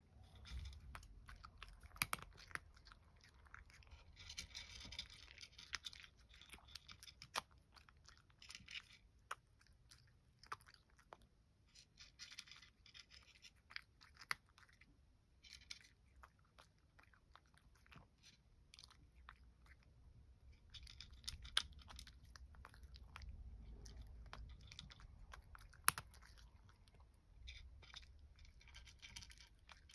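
A cat eating dry kibble: faint, irregular crunching and clicking as it chews.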